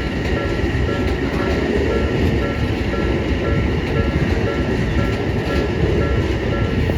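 Odakyu Odawara Line electric train running over the rails, a steady rumble with rail clatter. Over it the level crossing's warning bell rings in short, evenly repeated high tones.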